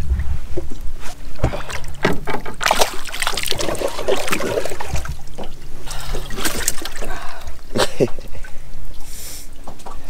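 Water splashing and sloshing as bass are let go over the side of a boat and lifted out of its livewell, in several separate splashes with knocks from handling.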